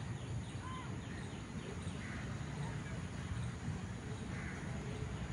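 Outdoor ambience: a steady low background rumble with birds calling now and then, a couple of harsher calls standing out about two and four and a half seconds in.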